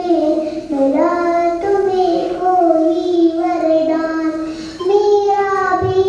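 A young girl singing a song into a microphone, holding long notes that step up and down in pitch, with a short breath about five seconds in.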